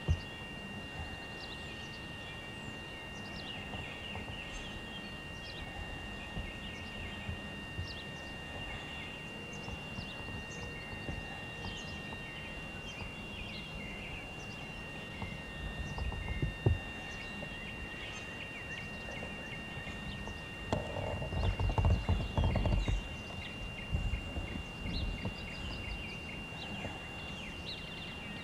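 Birds chirping and calling in the background over a steady high whine from the camcorder. A single thump sounds about sixteen seconds in, and a loud low rumble on the microphone lasts about two seconds after twenty-one seconds in.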